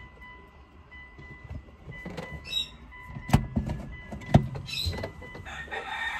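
Hard plastic car interior trim being handled and fitted, with scattered clicks and two sharp knocks about a second apart midway through.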